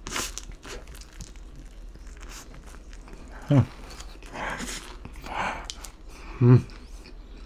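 A man biting into and chewing pizza crust with his mouth closed, with breaths through the nose and two short falling hums of enjoyment, about three and a half and six and a half seconds in.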